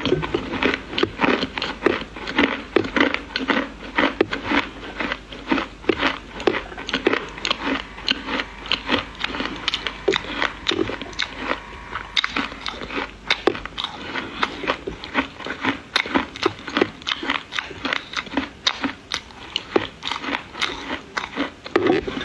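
Dry edible clay being bitten and chewed close to the microphone: a dense run of crisp cracks and crumbling crunches, several a second.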